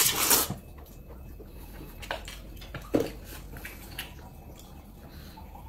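A person loudly slurping a mouthful of noodles for about half a second, followed by a few short wet clicks and smacks of eating about a second apart.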